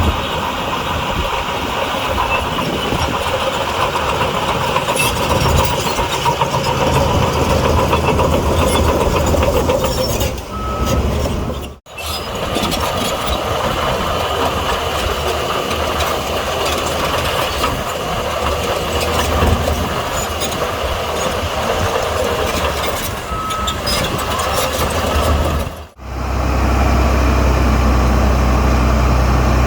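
Heavy diesel earthmoving machinery at work, a bulldozer and dump trucks, engines running steadily with clanking. A short single beep sounds twice, and the sound breaks off sharply twice where clips are cut together.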